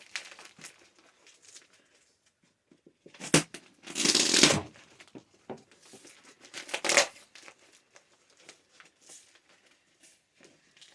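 A parcel's packing tape and cardboard being torn open by hand: a sharp snap about three seconds in, a loud rip just after it, another rip near seven seconds, with light rustling between.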